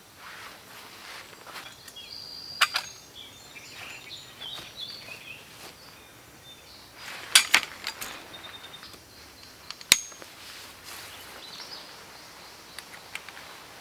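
A few sharp clacks and clinks of gear being handled, the three loudest about 3, 7 and 10 seconds in. Short high bird chirps sound in the background.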